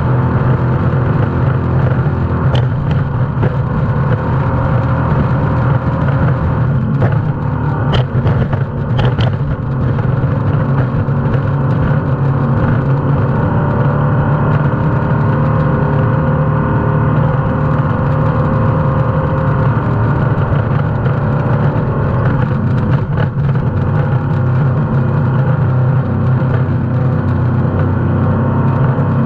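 Offshore race boat's engines running hard at high speed, heard from inside the enclosed cockpit as a loud, steady drone, with a few short sharp knocks about eight to nine seconds in.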